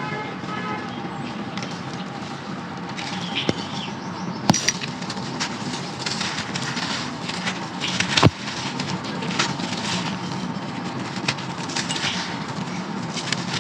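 Brown sand-clay being crumbled and crunched in a clay pot: a run of small crackling crunches, with three sharp clicks, the loudest about eight seconds in, over a steady background hum.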